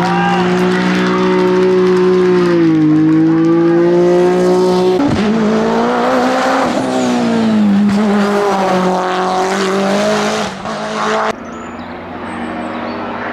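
Race-car engines at high revs, one car after another with abrupt cuts. First a BMW E30, whose note dips about two and a half seconds in. Then a winged saloon whose note falls and climbs again through a bend, and from about eleven seconds in a quieter car.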